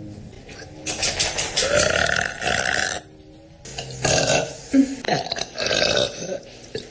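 A woman burping: one long burp lasting about two seconds, then several shorter burps.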